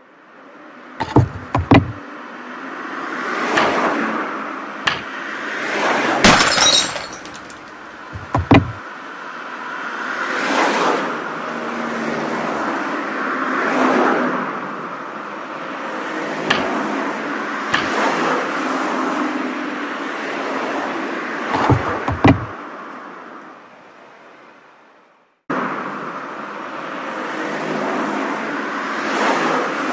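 Hard knocks and thumps against a car, with a burst of shattering glass about six seconds in: a car window being smashed. Scattered further knocks follow, then steady road noise after a brief drop-out near the end.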